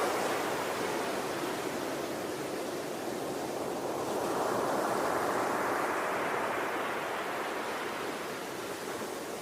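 Ocean waves washing on a shore: a steady rushing of surf that swells about halfway through and then eases off.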